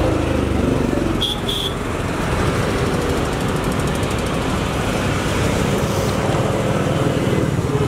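Steady road-traffic rumble of passing vehicles, with two short high-pitched notes about a second and a half in.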